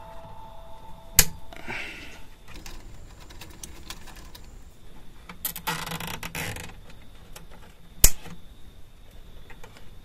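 Plastic cable ties being pulled tight through their ratchet heads: two rasping zips, a short one about two seconds in and a longer one of about a second around the middle. Two sharp clicks, one about a second in and another about eight seconds in, are the loudest sounds.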